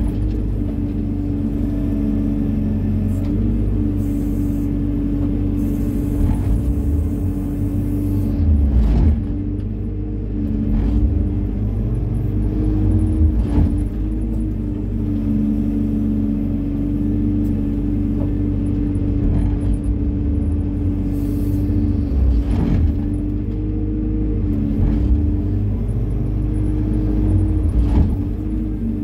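Hyundai 140 wheeled excavator's diesel engine running steadily under working load while the bucket scoops sand, with a steady low hum and several short knocks and clunks scattered through it.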